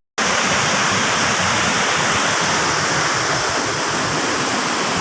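Steady rush of a large waterfall, Mae Ya Waterfall, with water pouring down over rock. It drops out for a split second right at the start.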